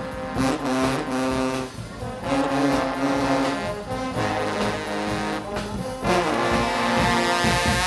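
Guggenmusik band playing: massed brass, with trombones and trumpets holding loud notes over drums.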